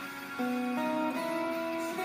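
Electric guitar played through a Bogner Uberschall amplifier and pedalboard: picked notes ringing on, a new note starting every third to half second, growing louder a little under half a second in.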